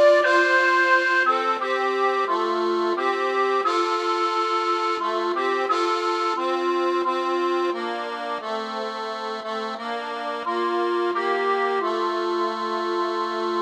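Instrumental background music: a melody over held chords, the notes changing about once a second.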